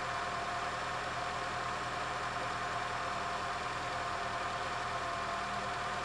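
Peugeot 106's petrol four-cylinder engine idling steadily.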